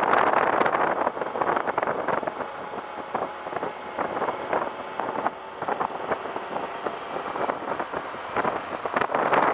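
Wind rushing and buffeting over the microphone on a moving Suzuki Bandit 1250 motorcycle, with its inline-four engine running steadily underneath. The wind eases after about a second and picks up again near the end.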